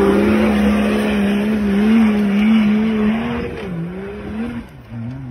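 Off-road 4x4 engine held at high revs while the vehicle claws up a steep dirt slope, its wheels spinning and flinging dirt. The engine note drops and fades about three and a half seconds in.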